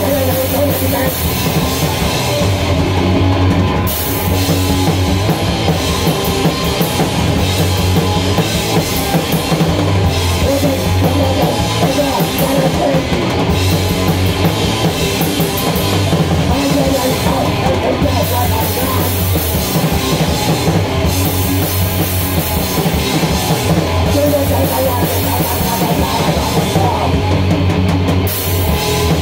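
Drum kit played hard in a rock or heavy-metal style close to the microphone, cymbals ringing over fast drumming. Amplified instruments hold low notes underneath that change every couple of seconds, as in a full band rehearsal. The cymbal wash drops out briefly a few times.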